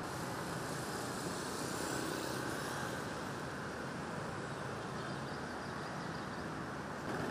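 Steady hum of distant city traffic: an even wash of noise with no single vehicle or event standing out.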